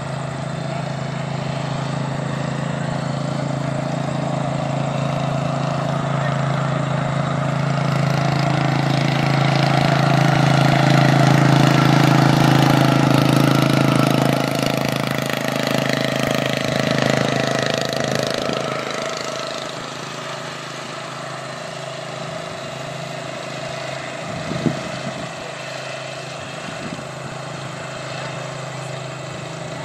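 Racing lawn tractor's small engine running at a steady pitch as it drives along a dirt track, growing louder as it approaches and passes close in the middle, then fading as it moves away. A single sharp click about three-quarters through.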